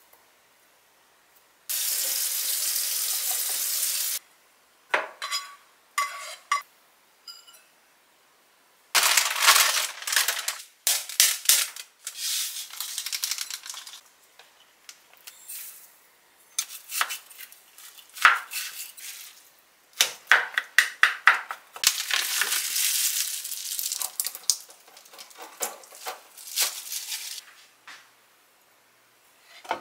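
A series of kitchen food-prep sounds. A steady hiss lasts about two seconds near the start, followed by repeated clinks, clatters and scraping of utensils and dishes, with stretches of crackly rustling and mixing.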